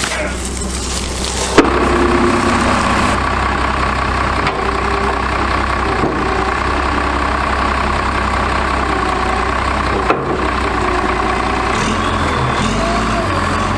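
Case bulldozer's diesel engine running steadily, with a sharp knock about a second and a half in and another near ten seconds.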